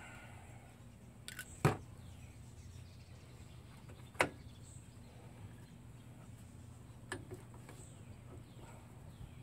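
Sharp metallic clicks of a hand tool and drum-brake parts being handled during brake reassembly: a loud click about a second and a half in, another about four seconds in, and a lighter pair near seven seconds, over a steady low hum.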